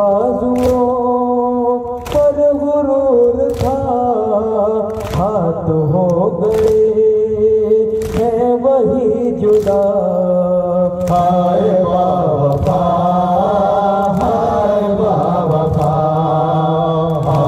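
Group of men chanting a noha (Shia lament) in unison, with chest-beating (matam) striking in time about every second and a half.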